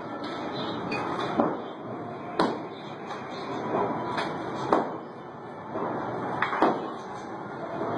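Hammer blows on a brick wall being knocked down: about five sharp knocks at uneven intervals, two of them in quick succession.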